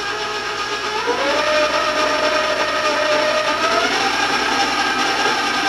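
Electric stand mixer running, its motor whining steadily as it beats flour into butter-and-sugar cookie dough; the pitch steps up about a second in and again near four seconds.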